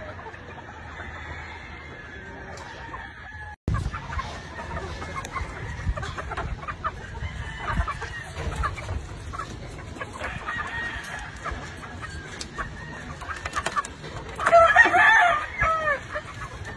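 Gamefowl clucking, with a rooster crowing loudly near the end.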